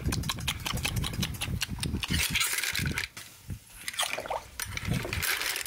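Broth in a pot of clam tinola sloshing and dripping, with scattered sharp clicks and clinks of clam shells and utensils; it quietens briefly past the middle.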